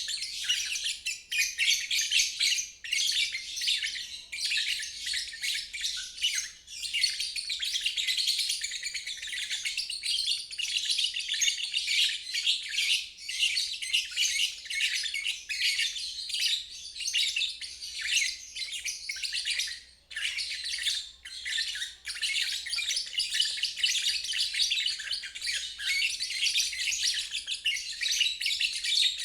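Lovebird chattering song ('ngeriwik'): a dense, continuous run of rapid high chirps and twitters with only brief pauses.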